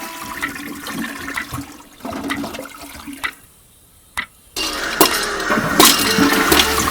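Scattered clinks and taps, then a short near-silent gap broken by a single click, then a loud rush of water that starts about four and a half seconds in, with clicks running through it.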